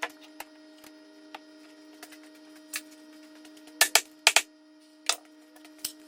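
Scattered clicks and knocks of objects being handled over a steady faint hum, with a cluster of sharp clicks about four seconds in.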